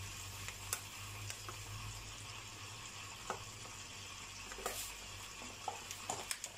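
Sugar being poured from a plastic bag into a cup: a few short crinkles and ticks from the bag, with a cluster near the end, over a steady background hiss and a low hum.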